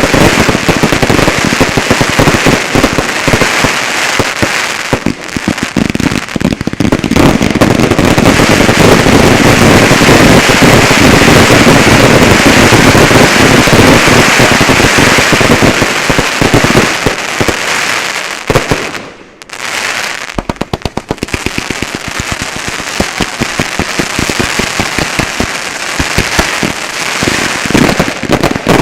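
Fireworks finale: a dense, near-continuous barrage of bangs and crackle from many shells and cakes firing at once. About two-thirds in it thins out briefly, then a rapid, evenly spaced string of pops leads back into the full barrage.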